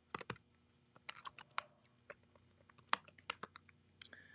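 Fingers tapping keys: about a dozen light, irregular clicks with short pauses between, as a Bible verse is looked up.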